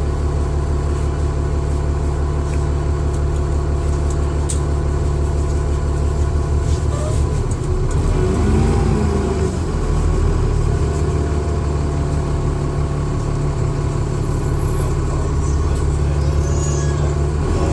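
Dennis Trident II double-decker bus's diesel engine running steadily, heard from inside the bus: a low drone with a steady high turbocharger whine over it.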